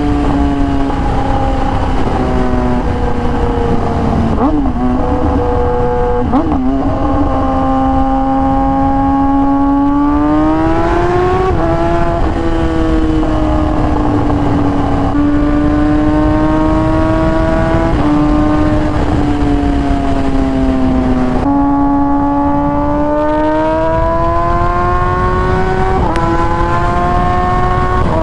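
Kawasaki ZX-10R inline-four sportbike engine pulling along a highway, its note climbing steadily and then dropping sharply at each upshift, about six times, with wind rumble on the microphone underneath.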